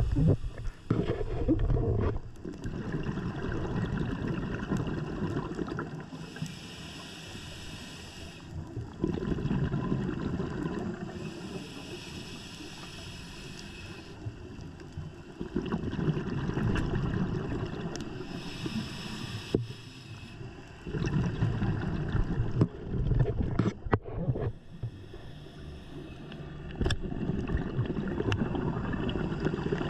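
A scuba diver breathing through a regulator underwater: a hiss on each inhale alternating with the low bubbling rumble of exhaled bubbles, roughly every five to six seconds. A few sharp clicks come in the second half.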